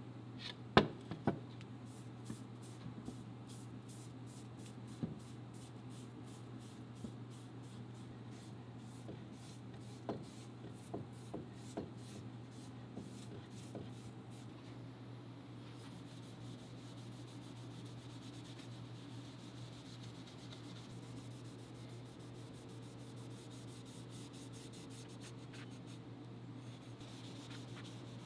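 Fine 0000 steel wool rubbed back and forth over a tung-oiled wooden rifle stock to knock back the gloss between coats: a scratchy rubbing at about two to three strokes a second. A few sharp knocks come near the start and again partway through, over a steady low hum.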